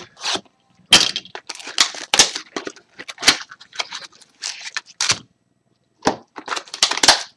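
Packaging on a box of trading cards being torn open and crinkled: a run of irregular sharp crackles and rips, with a short pause about five seconds in.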